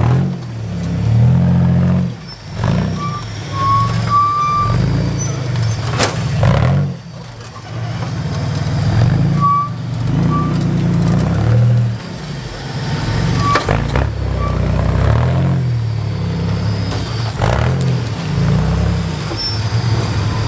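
Rock buggy's engine revving hard in repeated throttle bursts as it crawls over boulders. The pitch rises and falls, with brief lulls about 2, 7 and 12 seconds in where the throttle eases off.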